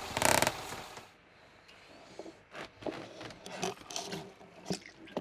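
An ice fishing line being reeled up: light, irregular clicks and scrapes of the reel and line being handled, after a brief rushing noise at the very start.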